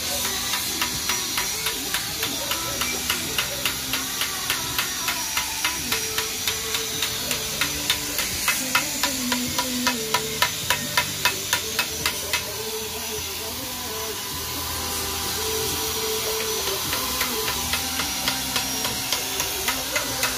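Rhythmic light tapping, about two to three sharp taps a second, pausing for a few seconds past the middle and then starting again, over a steady hiss.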